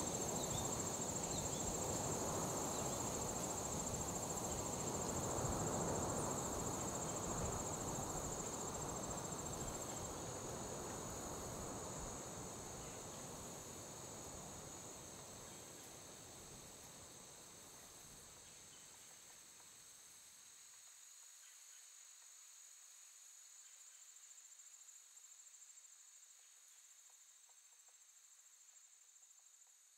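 Crickets chirping in a steady high trill over a low ambient wash. The wash fades out over the first fifteen seconds or so, while the crickets carry on faintly.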